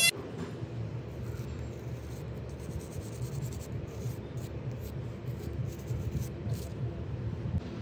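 Nail file rubbing back and forth across a thickly polished fingernail, a steady scratchy scraping.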